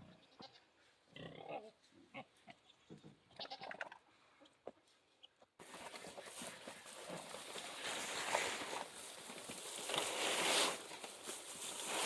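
Pigs calling in short bursts at feeding time. About five and a half seconds in, a sudden switch to a louder, dense jumble of noise that keeps building.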